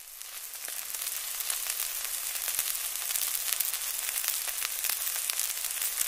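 Meat and vegetables sizzling on a barbecue grill: a steady hiss full of fine crackling pops, swelling over the first second.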